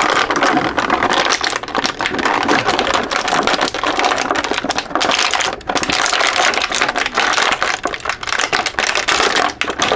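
Clear plastic blister tray crinkling and crackling densely as it is bent and handled, with many irregular clicks and only brief lulls.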